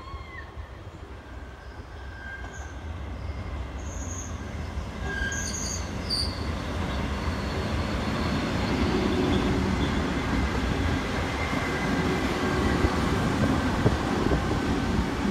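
Taiwan Railway EMU300 electric multiple unit approaching and passing, its rolling rumble on the rails building steadily over the first half and staying loud as the carriages go by.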